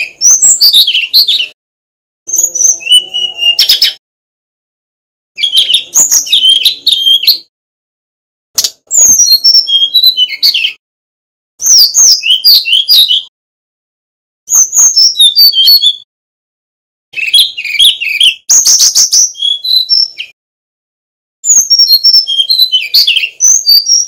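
Male brown-chested jungle flycatcher singing in a cage. It gives about eight short phrases of quick, varied whistled notes, each a second or two long, with pauses of about a second between them.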